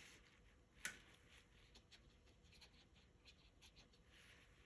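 Near silence with faint scratchy strokes of a paintbrush on watercolour paper, and one sharper tap a little under a second in.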